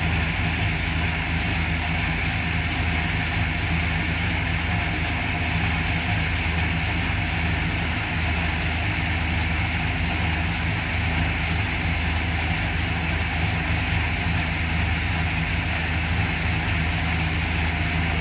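Diamond wire saw running steadily as it cuts through a stone block: a continuous low machine hum with a hiss above it.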